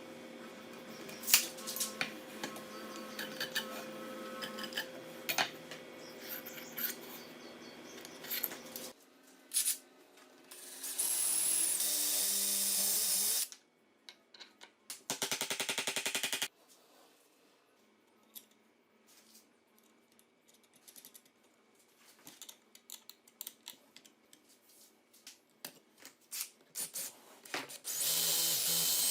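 Workshop power tool, likely the drill, run in several short bursts, one of them pulsing, with clicks and knocks of handling in between. A steady hum with clicks fills the first several seconds.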